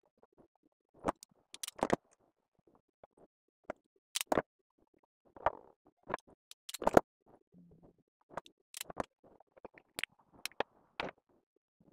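Irregular sharp clicks and snaps with short bouts of rustling: hand tools and flex cable being handled while stripping and preparing wire ends. The loudest click comes about seven seconds in.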